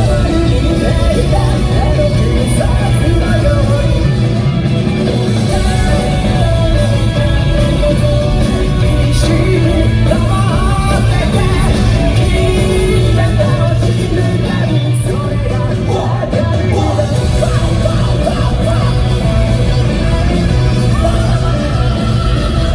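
Live J-rock band performance: a lead vocalist singing over loud electric guitars, bass and drums, heard from the audience through the hall's PA, with scattered crowd yells.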